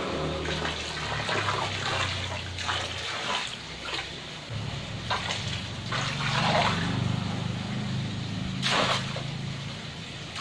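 Blue anti-fungal solution poured from a bucket into a pond, splashing onto the water surface in several pours over a low steady hum.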